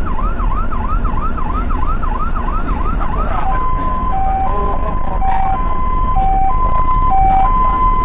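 Ambulance siren in a fast rising-and-falling yelp, about three cycles a second, switching about three and a half seconds in to a two-tone hi-lo pattern that alternates a high and a lower tone, then cutting off abruptly near the end. Steady road noise runs underneath.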